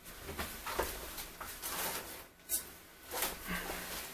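Hand handling noises at a workbench: irregular soft rustles and light knocks, with one sharp click about two and a half seconds in.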